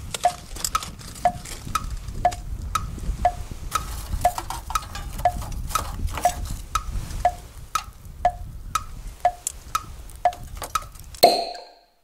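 Clock-like tick-tock sound effect: sharp wooden ticks about twice a second, alternating between a lower and a higher pitch, over a low rumble. Near the end comes a single louder ringing chime, marking the cooking time passing, and then the sound cuts off.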